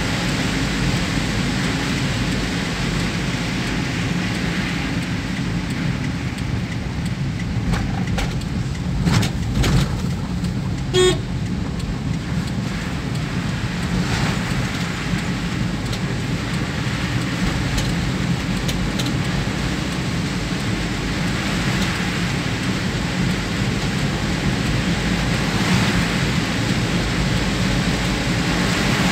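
Steady car-cabin noise of a car driving on a wet road in heavy rain, the rain beating on the car. A couple of thumps come about a third of the way in, and a car horn toots once, briefly, just after them.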